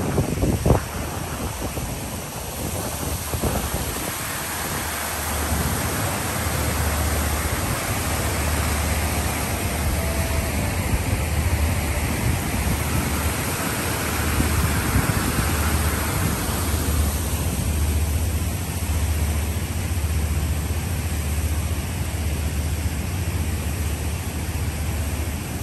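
Wind buffeting the microphone: a steady rushing noise with a low rumble that swells and fades in gusts, and a short knock just after the start.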